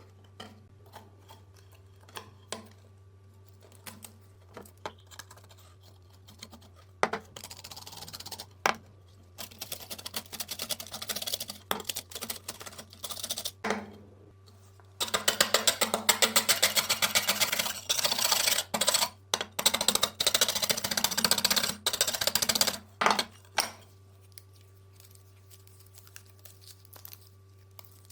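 Rusty steel cleaver being worked by hand: scattered taps and clicks, then runs of fast scraping strokes. The strokes start about seven seconds in, are loudest and densest in the middle and stop well before the end. A low steady hum sits underneath.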